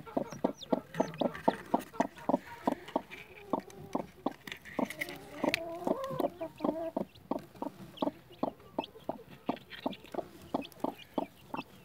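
Broody hen clucking steadily with her newly hatched chicks, about four short clucks a second, with a longer wavering call around the middle.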